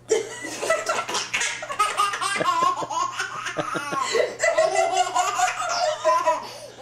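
A young girl laughing hard, with continuous high-pitched giggling that keeps going without a pause.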